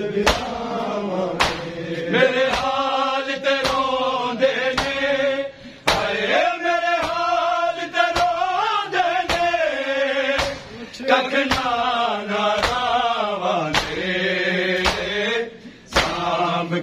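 Men chanting a nauha, a Shia mourning elegy, in long, drawn-out melodic lines, over the regular slaps of open hands striking bare chests in matam, about one beat a second.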